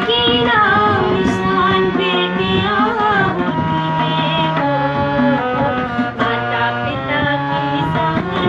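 A woman singing a Bundeli folk song, accompanied by a hand drum.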